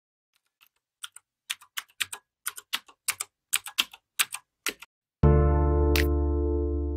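Computer keyboard typing sound, about twenty quick keystroke clicks over roughly four seconds. A little after five seconds, loud music starts abruptly with a sustained chord and a brief high swish.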